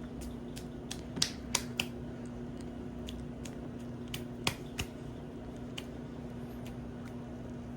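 Steady hum of a 52-inch Encon Elite ceiling fan's motor running, with scattered sharp irregular clicks, the loudest a few about a second in and two more around four and a half seconds in.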